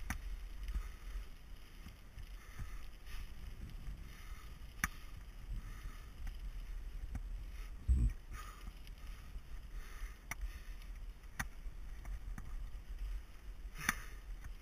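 Mountain bike rolling along a dirt and gravel singletrack: a steady low rumble of tyres and wind on the microphone, with a few sharp clicks from the bike over bumps and a heavier knock about eight seconds in.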